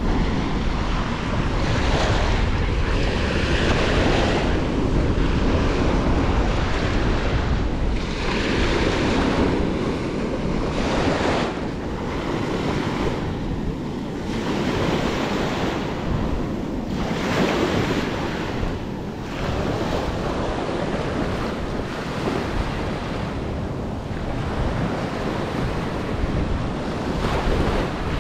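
Small waves washing up and draining back on a sandy shore, the hiss swelling and easing every few seconds, with wind rumbling on the microphone.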